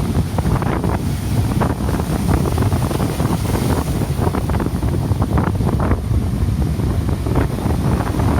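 Strong wind buffeting the microphone in an unsteady, low rumble over the rush of heavy surf. The rough, high storm sea is the kind that comes ahead of an approaching typhoon.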